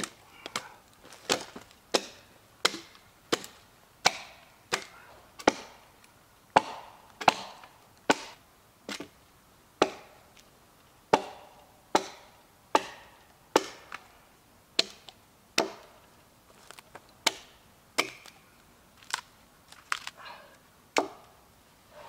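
Axe chopping into a felled conifer log: a steady run of sharp, woody strikes, a little over one a second.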